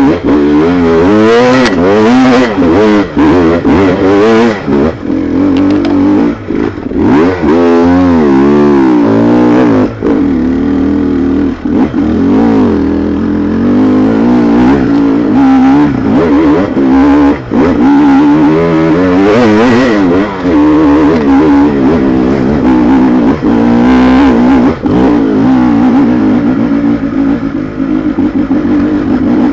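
Engine that is hard to start, now running and revved up and down over and over, its pitch rising and falling, with frequent brief drops in level.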